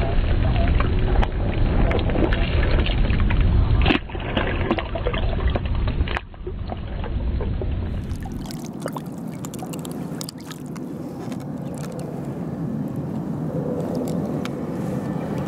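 A heavy low rumble with a muffled wash of noise for the first several seconds. After about eight seconds it gives way to lighter water sloshing and small splashes as a large black sea bream is held in shallow water.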